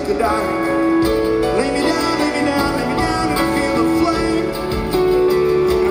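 Rock band playing live: guitars, bass and drums with a male lead vocal.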